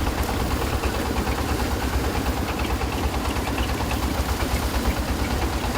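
Engine of a rice threshing machine running steadily, with a fast low throb.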